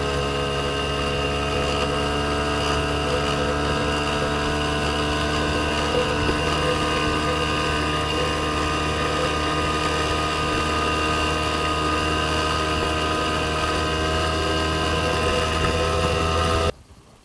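An engine running at a constant speed, giving a steady, even drone, which cuts off abruptly near the end.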